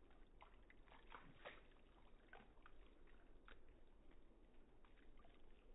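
Faint, irregular little splashes and drips of water as a Dutch Shepherd's paws wade through a shallow meltwater puddle.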